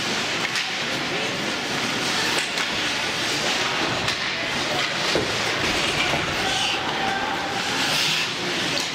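Ice hockey rink sounds during play: a steady scraping of skates on the ice, with a few sharp clacks of sticks and puck and some distant voices.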